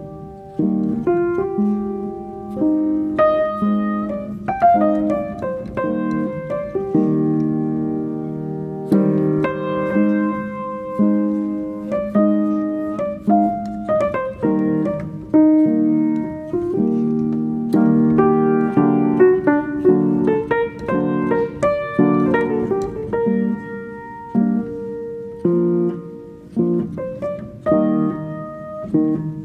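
Background piano music: a melody of struck notes that fade away, over held chords.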